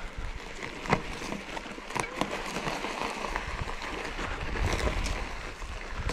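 Trek Fuel EX 7 mountain bike ridden over a rough forest trail: steady rolling tyre and air noise, with scattered clicks and knocks from the bike jolting over the ground.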